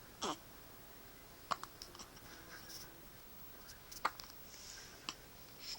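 Newborn baby hiccuping: several short, sharp hiccups a second or more apart, the first with a quick drop in pitch.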